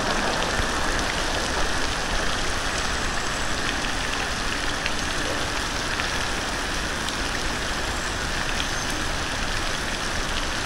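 Steady hiss of falling water splashing on a surface, with a few faint drip-like ticks.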